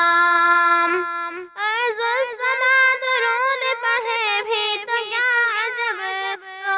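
A girl's voice singing a naat with no instruments. A long held note breaks off about a second and a half in, then a run of wavering, ornamented notes follows.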